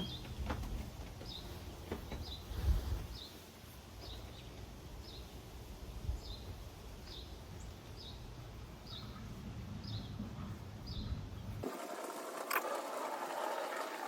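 A bird repeating one short high chirp about once a second, a dozen times, over a low steady rumble of outdoor background. Near the end the rumble drops away abruptly and a brighter rushing noise takes over.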